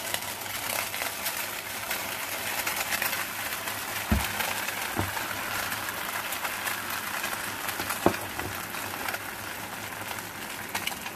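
Cream cheese and egg pancake batter sizzling in hot coconut oil in a frying pan, a steady hiss with fine crackles. Three light knocks break in, the loudest about eight seconds in.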